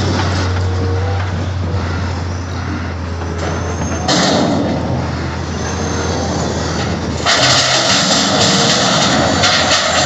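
Heavy diesel engines of an excavator and a Volvo A45G articulated dump truck running with a steady low hum. From about seven seconds in, a louder rumbling rush as the excavator bucket tips its load of rock into the hauler's steel dump body.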